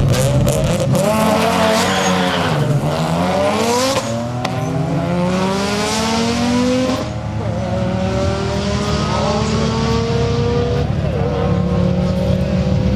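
Two drag-racing cars' engines at full throttle as they pull away down the strip, their pitch climbing through the gears with breaks at each shift.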